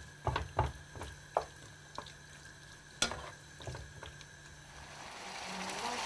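Wooden spatula stirring pieces of hare liver and heart frying in oil in a deep pan, with several sharp knocks of the spatula against the pan. Near the end a steady hiss swells up.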